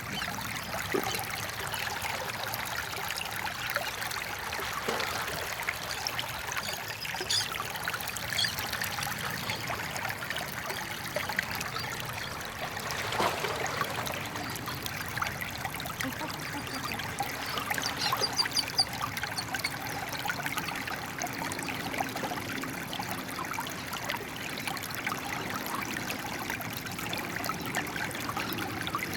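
A small stream of flowing water, trickling steadily.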